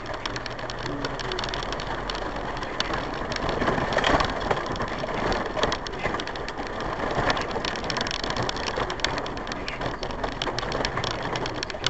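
A 4x4 driving slowly along a rough, muddy unsurfaced lane, heard inside the cabin: a steady low running hum under a dense patter of small knocks, rattles and tyre crunch from the bumpy track.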